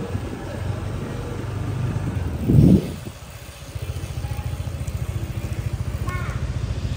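Low-speed motorbike engine running with a steady pulsing low rumble. A brief louder burst comes about two and a half seconds in.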